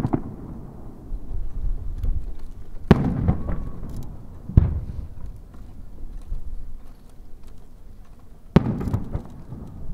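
Aerial firework shells bursting one at a time overhead: three sharp booms, the middle one the loudest, each followed by a rolling, echoing rumble.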